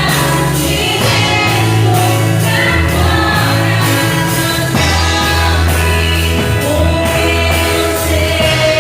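Christian worship song: a band with a deep bass line and several voices singing together, one note held long near the end.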